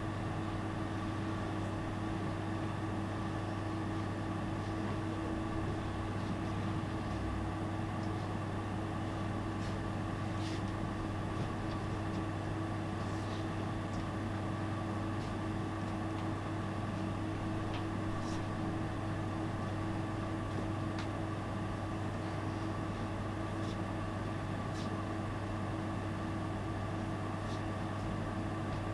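A steady, even hum with a low drone and a couple of steady higher tones, with faint scattered ticks now and then.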